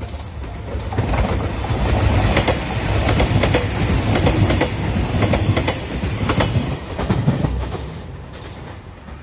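JR Shikoku 2700 series diesel limited express train passing close by at speed, its wheels clicking over the rail joints in a regular clickety-clack. The noise builds over the first second and fades near the end.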